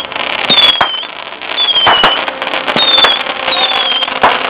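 Fireworks going off: four high whistles, each falling in pitch for about half a second, with several sharp cracks between them over a continuous crackling hiss.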